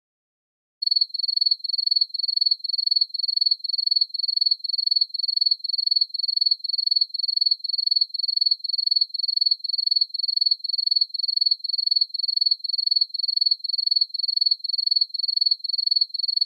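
Field cricket chirping, a steady train of short, high chirps about three a second, beginning about a second in: the stock crickets sound effect used to mark an awkward silence.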